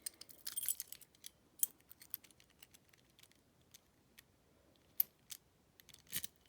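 Small metallic clicks and light rattling from a Master Lock laminated brass padlock and its metal parts being handled, with a couple of sharper clicks.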